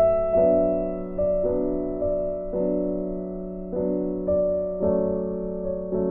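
Background piano music: slow, soft chords struck about once a second, each fading before the next.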